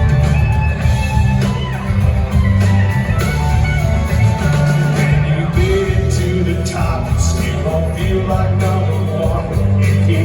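Loud live country-rock band playing: electric guitars over steady bass and drums.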